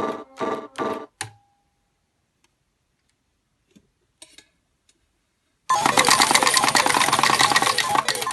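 Hanabi Japanese pachislot machine: a few short electronic beeps, then scattered faint clicks, then about two and a half seconds of a fast, loud clatter of metal tokens pouring out into the tray as a payout.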